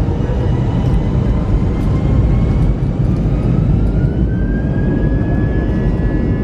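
Airbus A320 jet engines running up for takeoff: a loud, steady low rumble with a high whine that rises in pitch about three and a half seconds in and then holds.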